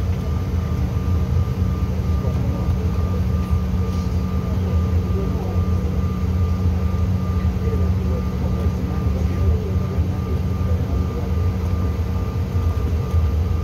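Steady cabin noise inside a Bombardier CRJ900 regional jet on the ground before takeoff: a constant low rumble with a steady high whine running over it.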